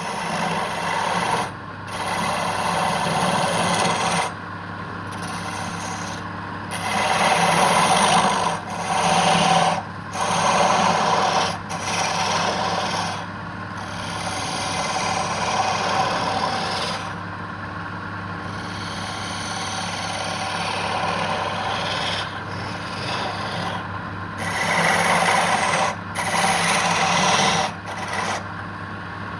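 Wood lathe running with a steady hum while a turning tool scrapes and cuts the spinning wood in repeated passes of a second or two, with short breaks between passes.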